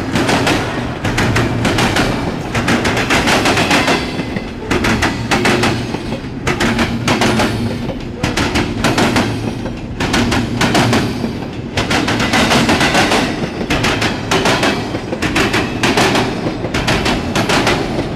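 Norfolk Southern intermodal freight train rolling past close by, its wheels clattering rapidly over the rail joints in loud repeating groups of clicks.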